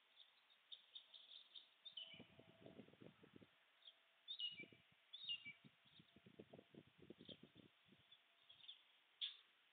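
Faint small birds chirping in the background, with runs of quick, soft knocks and rustles from a white stork probing and working the twigs of its nest with its bill.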